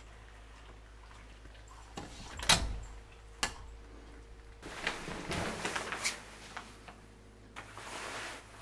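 A sharp thump about two and a half seconds in and a click a second later, then a couple of seconds of rustling with small clicks, and a short rustle near the end.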